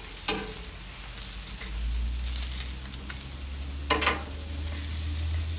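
Italian sausages and onions sizzling on a hot Blackstone flat-top griddle, with a brief sharp clatter about four seconds in. A low steady hum joins the sizzle about two seconds in.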